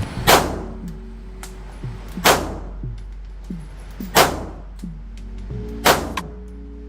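Sarsilmaz SAR 2000 pistol firing single aimed shots, four of them about two seconds apart, each with a short ring-out. Fainter sharp clicks fall between the shots over a steady low hum.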